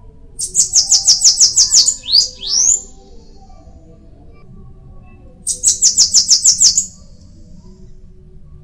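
Bananaquit (sibite) singing: two songs, each a rapid, high-pitched series of buzzy notes. The first song ends in two quick swooping notes.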